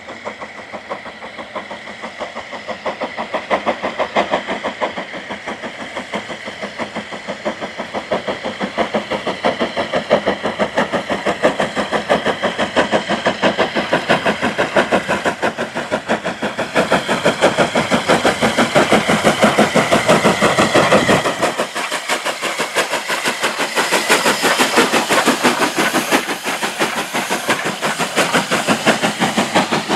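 Southern Railway Q Class 0-6-0 steam locomotive working a train up a bank, its exhaust beating in a rapid, even rhythm that grows louder as it approaches and passes close by.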